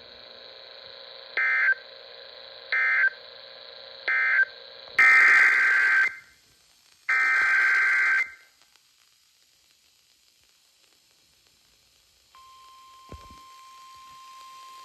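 Emergency Alert System (SAME) digital data bursts from a weather-radio broadcast, a harsh buzzing warble. First come three short end-of-message bursts, then two longer header bursts about a second apart. After a few seconds of near silence, the steady single-pitch 1050 Hz weather-radio warning alarm tone starts near the end.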